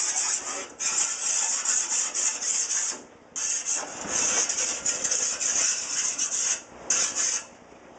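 Diamond file rasping along the edge of a cut pane of window glass in quick back-and-forth strokes, smoothing the edge. It runs about three seconds, stops briefly, goes on for about three more, and comes back for one short stroke near the end.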